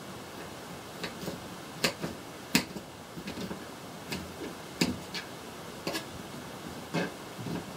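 Kitchen knife cutting on a plastic cutting board: sharp, irregular taps, about one or two a second.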